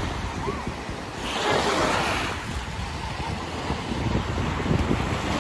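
Small surf breaking and washing up a sandy beach, with wind buffeting the microphone; one wave's wash swells up about a second and a half in.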